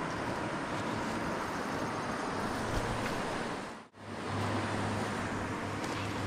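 Steady rushing noise of wind on the microphone, with a low hum under it. It fades out briefly about four seconds in and then returns.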